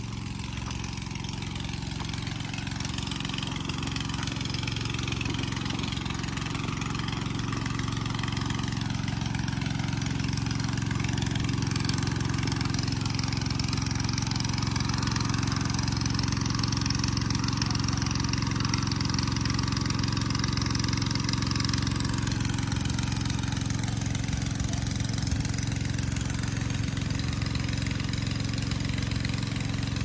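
Sumitomo excavator's diesel engine running at a steady speed, growing somewhat louder over the first ten seconds.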